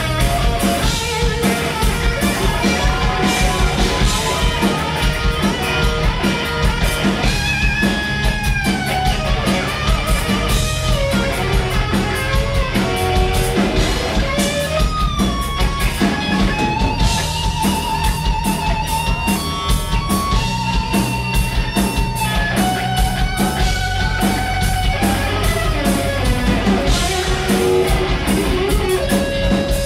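Live rock band playing loudly on electric guitar, bass and drum kit, with a lead line of long held and bending notes over a steady beat.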